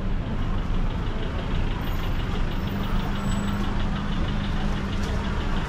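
A motor vehicle engine idling close by, a steady low hum with a fast, even ticking, amid street traffic.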